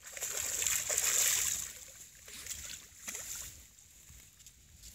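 Water splashing and trickling, loudest for the first second and a half, then a few short smaller splashes.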